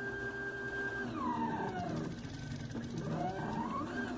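Stepper motors salvaged from a Canon copier whining as they drive the pen carriage of a homemade CNC machine. A steady whine for about the first second, then the pitch falls as the motor slows. Near the end the pitch rises and falls again.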